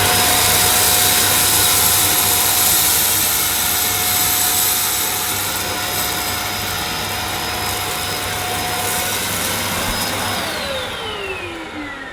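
EGL 600-watt handheld mains vacuum cleaner running steadily with a high motor whine as it vacuums sand, rice and lentils off a short-pile rug. About ten seconds in it is switched off and the whine falls in pitch as the motor spins down.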